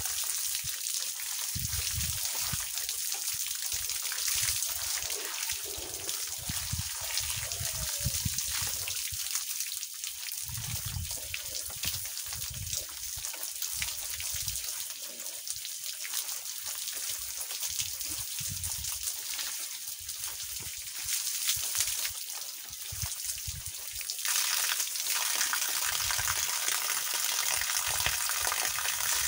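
Water spraying from a garden hose and splashing down onto a person showering under it and onto the grass: a steady hissing splatter. About three quarters of the way through it grows louder and fuller.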